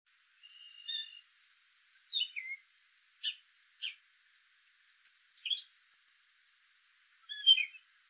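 Gray catbird singing: six short, varied phrases of chirps and downward slurs, separated by brief pauses, the last one the loudest.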